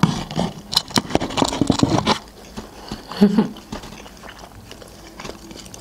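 Chewing and biting into chicken nuggets, with a quick run of crisp mouth clicks and crunches in the first two seconds, then a short hum of voice about three seconds in.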